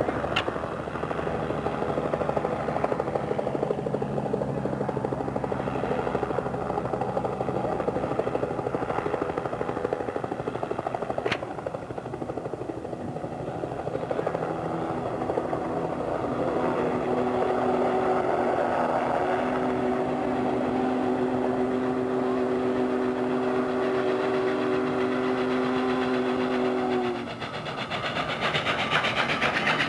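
Steam locomotive sound-effect recording: a steady running rumble with a sharp click near the middle, then a multi-note whistle holding a chord for about ten seconds, cutting off shortly before the end.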